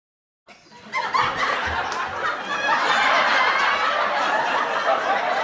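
Several voices laughing and snickering together, starting suddenly out of silence about half a second in.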